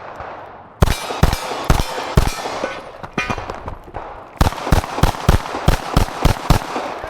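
Pistol shots fired in quick strings during a USPSA stage run, starting about a second in. A few shots come first, then a pause, then a faster run of about eight shots near the end.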